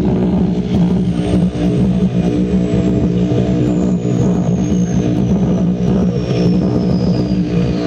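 Strong humming shortwave radio signal heard through a receiver: a steady, throbbing drone like a fleet of propeller bombers, over band hiss, with a faint high whistle sliding slowly downward.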